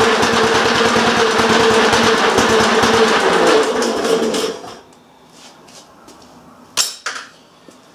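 1923 Briggs & Stratton Model PB single-cylinder, air-cooled engine running with a growly, even beat, then shut off: it slows and dies away about four and a half seconds in. A single sharp knock follows near the end.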